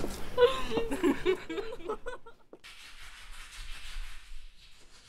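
A person's voice for about two seconds, then a steady hiss that fades out about four and a half seconds in.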